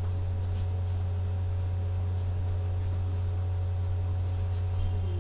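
Steady low hum at an even level, with a few faint steady higher tones above it; no other sound stands out.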